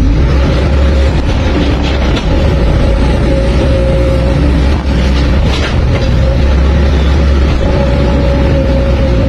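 Hydraulic excavator running steadily: a deep diesel drone with a steady whine above it, and a couple of brief clicks.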